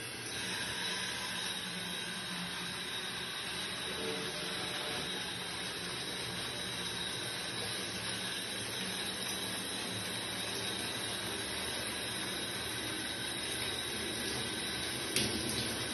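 Water running from a shower, a steady hiss that starts as the mixer valve is opened, with a faint high whine over it. A single sharp click near the end.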